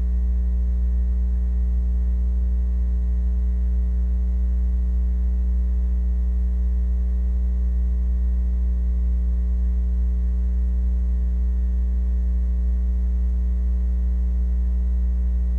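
Steady, loud, low electrical mains hum with nothing else heard; the programme's music is missing here, leaving only the hum of the old audio transfer.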